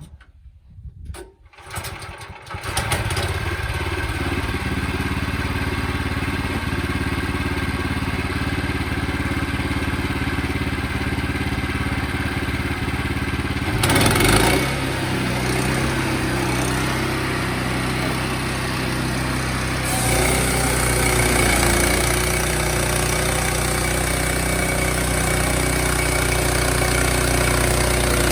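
Portable sawmill's gasoline engine starting about two seconds in and then running steadily, with a short louder surge about halfway through. A brighter, hissing layer joins the engine sound about two-thirds of the way through.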